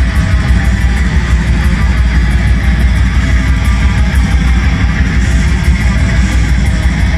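Black metal band playing live at full volume: electric guitars, bass and drums in a dense, unbroken wall of sound over a fast, steady drum beat.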